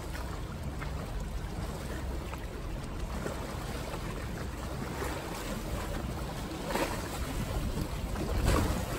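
Steady rush of wind buffeting the microphone and water churning past a moving boat, swelling louder a couple of times near the end.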